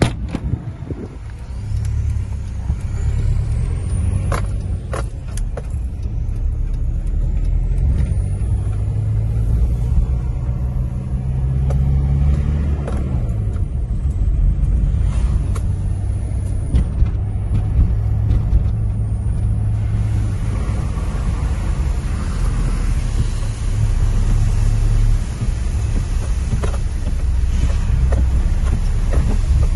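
A thump at the start, then a car driving on a wet road, heard from inside the cabin: a steady low engine drone that rises and falls in pitch about twelve seconds in, with a few clicks. From about twenty seconds in, a much louder hiss of water from the tyres and heavy rain joins it.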